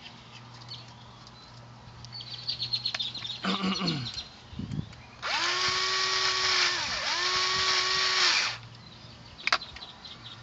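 Power drill running in two bursts of about a second and a half each, its motor pitch dipping as the trigger is let off between them. Birds chirp before it, and a sharp click follows near the end.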